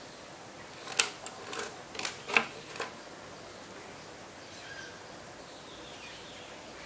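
A quick run of about six sharp clicks and taps, starting about a second in and over within two seconds, from hands handling the Skullcandy FIX earphones' inline remote and cable.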